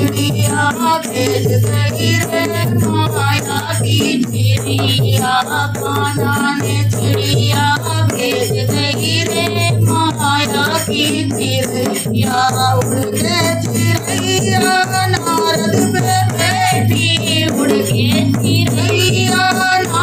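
A woman singing a Hindi Krishna bhajan in folk style, accompanied by a hand-played dholak beat with a jingling rattle in the rhythm.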